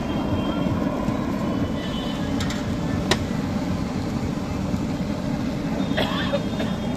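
Steady low rumble of street noise, with one sharp click about three seconds in and a short clatter near the end.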